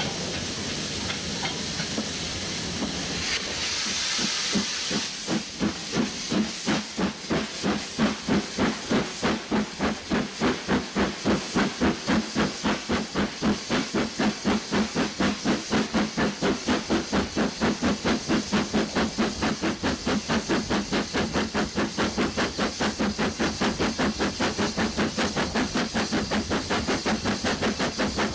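Steam locomotive pulling away with a train: a burst of hissing steam, then regular exhaust chuffs that quicken steadily as it gathers speed.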